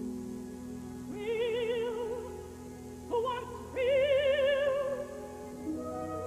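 Operatic soprano singing three held notes with a wide vibrato over sustained orchestral chords. The third note, about four seconds in, is the longest and loudest; after it the orchestra carries on alone.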